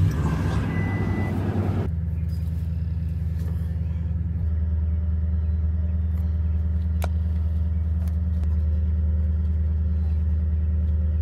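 Toyota Tundra pickup engine starting, running fast for about two seconds, then settling into a steady idle that drops a step about four seconds in. A single short click about seven seconds in.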